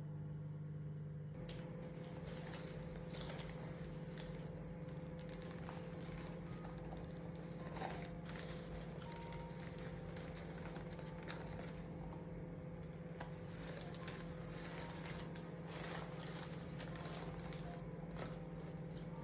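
A steady mechanical hum with a fainter higher tone above it, under a hiss with scattered small clicks and crackles.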